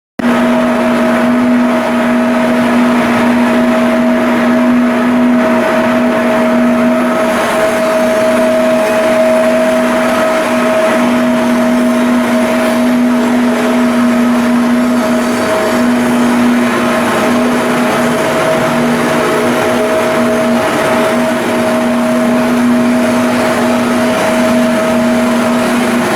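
Machinery running steadily: a constant mechanical drone with a steady two-note hum that does not change.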